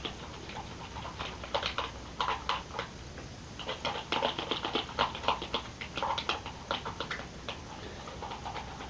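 Glitter glue and slime activator being stirred by hand in a bowl: irregular sticky, wet clicks and smacks. The mix has stayed runny, like plain glue, and is not forming slime.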